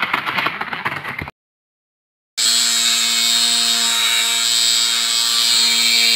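A small DC motor with a weight on its shaft spinning up and rattling the matchbox it is mounted on for about a second, then cut off. After a second's gap, a loud steady electric hum with a high hiss sets in and holds.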